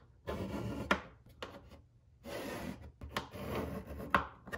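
Pencil scratching lines onto plywood along the edge of a plastic electrical box, marking out the cutout: three short strokes, with a few light clicks between them.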